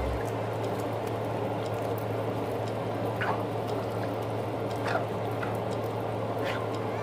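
Pot of mung beans in coconut milk simmering: a steady bubbling hiss with a few small pops, over a constant low hum.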